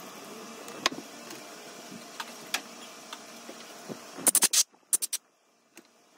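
Light, sharp clicks of a small metal hook pick scraping corrosion deposits inside a motorcycle brake caliper's piston bore, over a steady background hiss. About four seconds in comes a cluster of loud knocks and clatter as the phone camera is handled, and the background hiss drops away.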